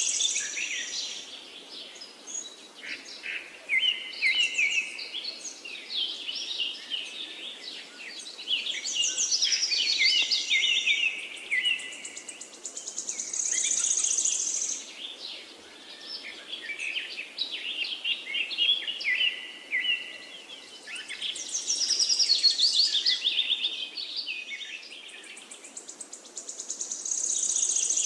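Birdsong: several birds chirping and trilling, swelling and fading every few seconds.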